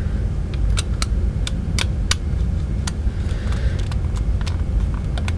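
Irregular small plastic clicks and taps as the battery cover of a goal light's radio remote is worked against the remote's case, not yet seating in its slot. A steady low hum sits under the clicks.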